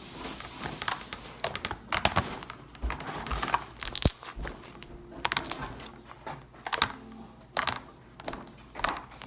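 Slime being squished and worked in the hands, making irregular sticky crackles, pops and clicks.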